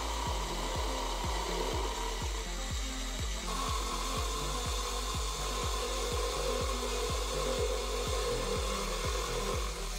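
Benchtop milling machine's end mill cutting into a metal shaft: a steady whine over a dense cutting noise, with the pitch stepping up slightly about three and a half seconds in. A backing track with a regular beat plays underneath.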